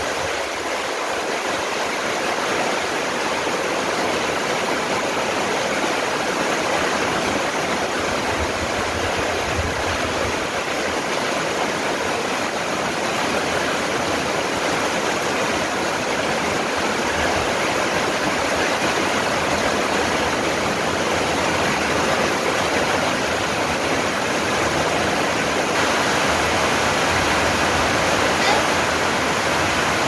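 Steady rain falling on the leaves of garden trees and shrubs, an even hiss that holds at one level throughout.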